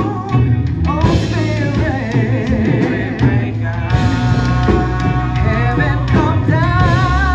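Worship music: a held, wavering sung melody over a band with bass and drums.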